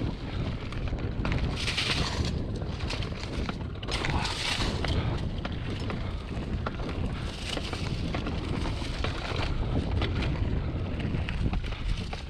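Mountain bike riding fast over a dirt trail: wind buffeting the camera microphone as a low rumble, with tyre noise and the bike rattling over bumps in many short clicks. Two brief hissing spells about two and four and a half seconds in.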